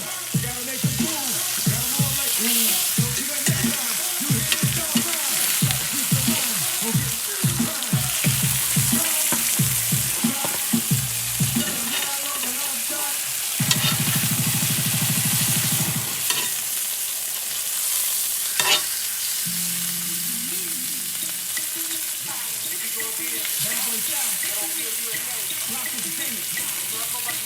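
Food sizzling and bubbling in a pan on the stove, a continuous frying hiss with a few sharp utensil clicks. A low hum sounds for about two seconds midway.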